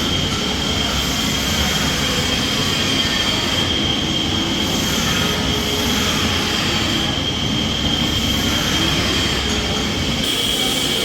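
Large CNC roll turning lathe running: a steady mechanical rumble with a constant high-pitched whine over it.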